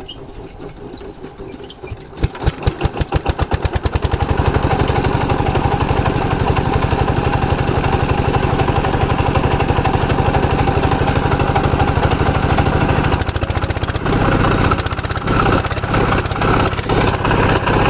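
Diesel engine of a water pumpset catching about two seconds in, its slow beats quickening into a steady, fast chugging run. Around fourteen seconds in it gets louder and deeper.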